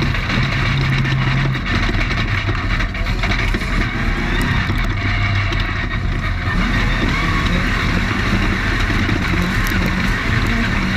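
Off-road race car running at speed, heard from on board. The engine holds a steady note for the first second and a half, then changes pitch, under a constant loud, noisy rush.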